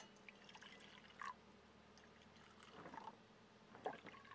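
Coffee poured in a thin stream from a small metal cup into an enamel mug, a faint trickle with a few brief louder splashes.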